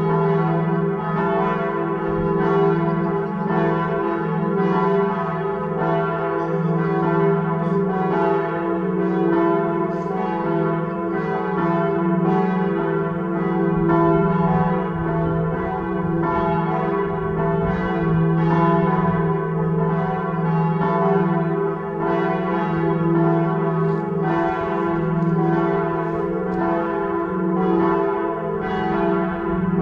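Several church bells swinging and ringing together in a full peal. Their strokes overlap without pause, about two a second, over the steady hum of the lower bells.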